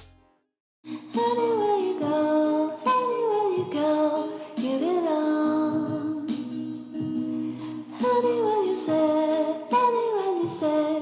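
Background music with a sung melody, starting after a brief silence about a second in.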